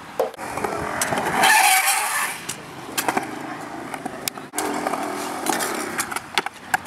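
Skateboard on a concrete skatepark: urethane wheels rolling and scraping, with sharp clacks of the board hitting the concrete. A louder rasping stretch comes about one and a half seconds in, and a steady rolling rumble from about the middle on.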